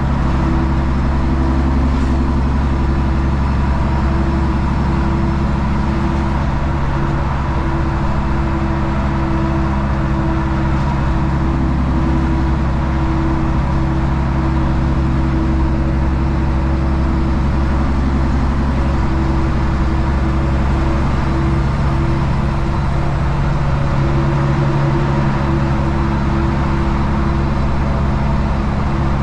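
Heavy truck's diesel engine running at a steady cruise, heard from inside the cab with the side window down, over tyre and wind noise.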